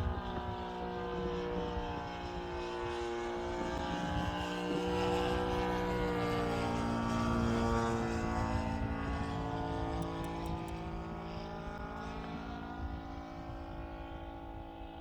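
Saito FG-60R3 three-cylinder four-stroke radial petrol engine and propeller of a large radio-controlled Westland Lysander model in flight, running steadily with its pitch bending up and down as the plane flies around; loudest about halfway through.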